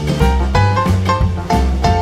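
Upbeat instrumental music with plucked strings over a steady bass line and drums, in a swing or jazz style.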